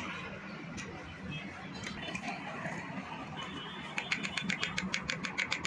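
Metal clicks from hands handling the thread take-up lever mechanism inside an opened industrial sewing machine head. The clicks are scattered at first, then come as a quick run of about nine a second for a couple of seconds near the end.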